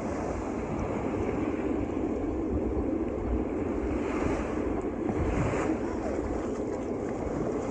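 Steady wind and ocean surf noise, with wind buffeting the microphone.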